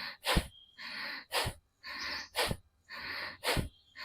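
Bhastrika pranayama: forceful, deep breathing in and out through the nose, a longer hissing breath alternating with a short, sharp, louder blast. It runs at a steady rhythm of about one breath cycle a second, four cycles in all.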